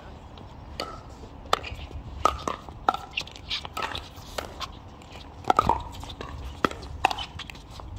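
Pickleball paddles striking a plastic pickleball in a rally: a string of sharp pops at irregular intervals, with a quick cluster of hits a little past halfway.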